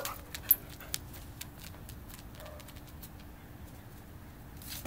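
Shetland sheepdogs playing: the tail of a bark at the very start and one short yip about half a second in, then mostly quiet with a few faint ticks over a low steady hum.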